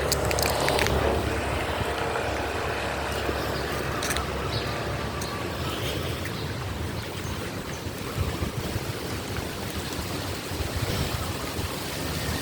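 Strong wind blowing across the microphone: a steady low rumble that swells and eases with the gusts, with a few brief clicks in the first second and again about four seconds in.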